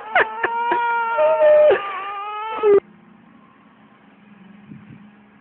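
A loud, high wailing cry, held with small wavers in pitch and a few sharp clicks, cut off abruptly about three seconds in. A faint low hum follows.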